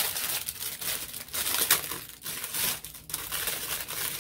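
Thin clear plastic bag crinkling and rustling in irregular bursts as it is pulled open by hand.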